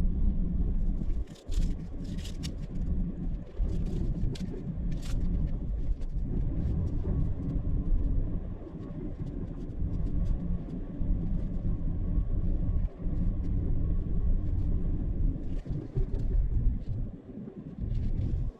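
Low, steady road rumble of a vehicle being driven, with scattered short clicks and knocks, most of them in the first few seconds.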